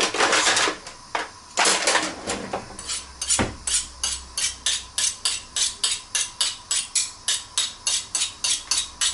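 A kitchen knife being sharpened: quick metal-on-metal scraping strokes, about four a second, after a couple of seconds of clattering and a single knock.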